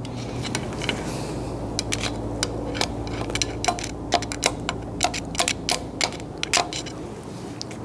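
Irregular light metallic clicks and taps as a long screwdriver pushes silicone-coated washers down the head studs of a cylinder head until they seat. A steady low hum runs underneath.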